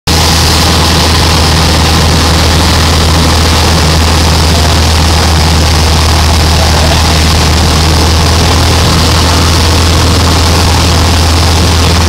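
A small aircraft's engine and propeller running steadily, with rushing air from flight, heard from a camera mounted on the aircraft: a loud, even drone with a constant low hum under a wide hiss.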